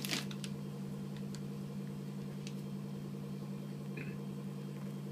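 A steady low mechanical hum with a few faint clicks, and a brief soft sound about four seconds in.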